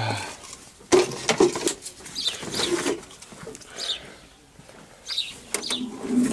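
Birds calling, with short falling chirps repeated every second or so, and a sharp knock about a second in.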